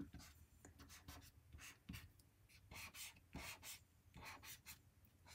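Broad-edge felt-tip marker stroked across paper in a quick run of short, faint scratchy strokes, laying colour stripes over a drawing.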